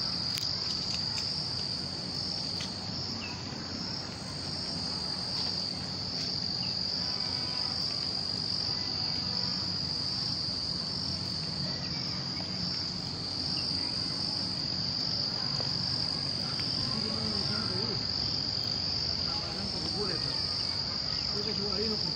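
Insects chirring steadily in one continuous high-pitched drone, with a second, higher and fainter insect buzz that comes and goes every second or two.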